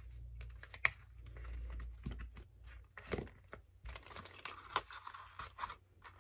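Hands handling plastic ballpoint pens and paper on a tabletop: pens set into a white paper box and a pink cardstock sleeve slid over it, giving scattered light taps and clicks with soft paper rustle.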